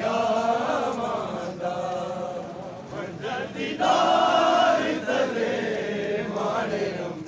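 Many men chanting a nauha (mourning chant) together in long sung phrases with short breaks between them, the loudest phrase a little past the middle.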